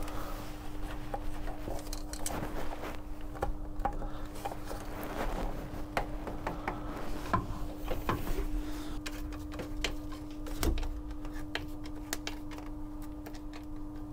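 Scattered light clicks and taps of a screwdriver and plastic hose fittings being handled while fitting a bilge pump's outlet hose and clamp, over a steady hum.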